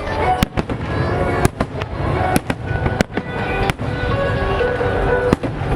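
Fireworks exploding in an irregular run of sharp bangs, a little under one a second, with music playing underneath.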